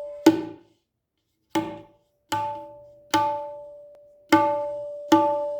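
Freshly repaired dayan (right-hand tabla) struck with single open strokes, six times about a second apart. Each stroke rings with a clear, sustained pitch that fades before the next, testing its tuning to the note E.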